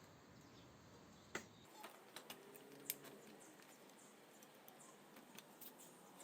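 A few light clicks and taps over a near-silent background, the two sharpest about a second and a half and three seconds in, with fainter ticks after.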